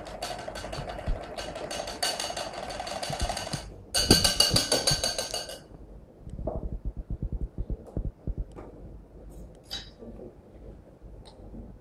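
Hand-held immersion (stick) blender whirring in a glass bowl of batter, cutting out briefly about three and a half seconds in, then running louder for about a second and a half before stopping. A run of quick low knocks and a couple of sharp clinks follow.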